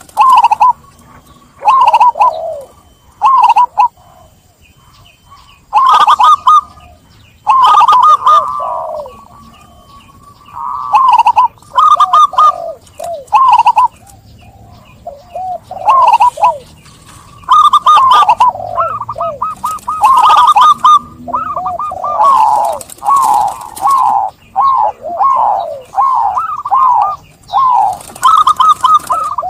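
Zebra dove (perkutut) cooing: loud, repeated phrases of quick, bouncing coos, each phrase a second or a few seconds long, with short pauses between them.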